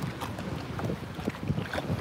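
Wind gusting on the microphone, with water slapping against a jet ski's hull in irregular strokes.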